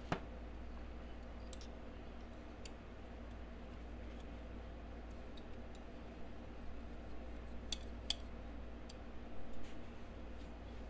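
Sparse, faint clicks and taps of a Spyderco PM2 folding knife being handled, over a steady low hum; the sharpest click comes right at the start, with a small cluster near the end.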